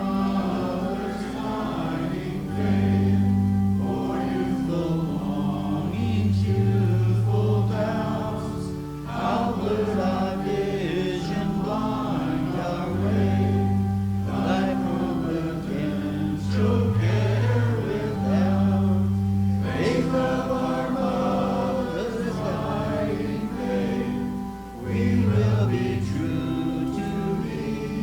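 A group of voices singing a hymn together over held bass notes from a keyboard accompaniment, phrase by phrase with short breaks between lines.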